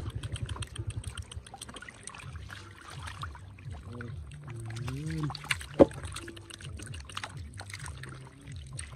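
Hands splashing and grabbing in a shallow muddy puddle while caught fish thrash in the water: many small splashes and slaps, with one sharp knock about six seconds in.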